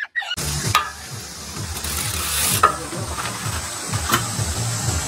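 A mountain bike climbing stone steps: a steady hiss and low rumble with a faint high steady tone, broken by a few sharp clicks and knocks from the bike.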